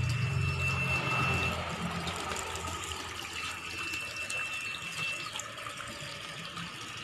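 Tap water pouring in a steady stream into a half-full plastic tub, a continuous splashing.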